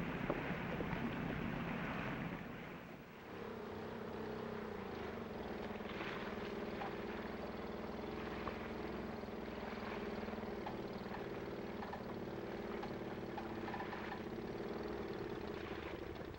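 PBY Catalina flying boat alighting on the sea: for about three seconds a rushing hiss of spray as the hull skims the water, then, after a short drop, the steady drone of its twin radial engines running as it sits on the water.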